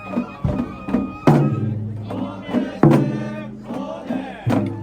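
Traditional Japanese festival music with steady held tones and loud sharp hits about every second and a half, with crowd voices.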